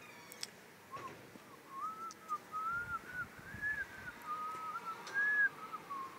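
A person whistling a slow tune, a single melody line of rising and falling notes, with a couple of faint clicks near the start.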